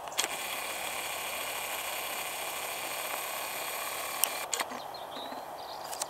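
Video camera's lens zoom motor whirring steadily for about four seconds as the lens zooms out, starting with a click and cutting off suddenly with another click, over a faint outdoor hiss.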